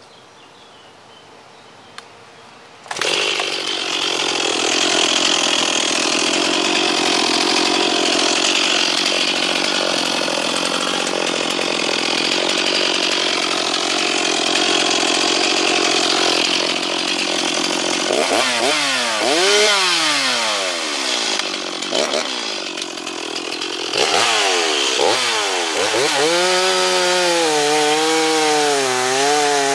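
Stihl MS 260 two-stroke chainsaw starting about three seconds in and running steadily, then revved up and down a few times. Near the end it is running under load, cutting through a log.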